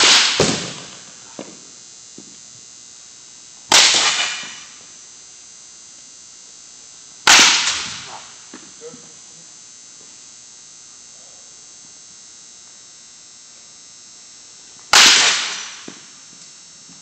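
Baseball bat striking a ball in a batting cage: four sharp cracks, near the start, about four seconds in, about seven seconds in and about fifteen seconds in, each ringing out for about a second in the large hall. A few faint knocks follow some of the hits.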